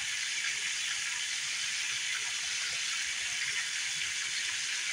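Flour-dredged cube steaks frying in hot oil in a skillet, with a steady sizzle as they sear.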